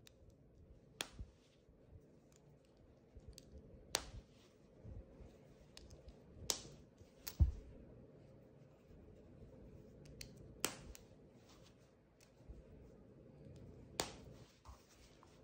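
Metal pronged snap fasteners on a woven cotton garment clicking as they are fastened and worked by hand, about six separate clicks spread out, with fabric rustling between them and a dull thump about halfway through.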